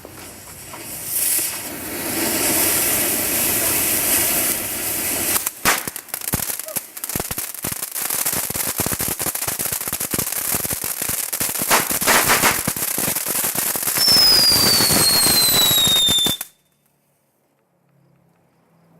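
Ground fireworks fountain hissing as it sprays, then a long run of crackling pops. A whistle falls in pitch over the last couple of seconds before everything cuts off suddenly.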